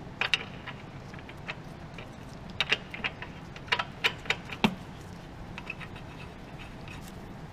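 Scattered metallic clinks and knocks from hand tools and car parts being handled during reassembly, in a few short clusters with gaps between.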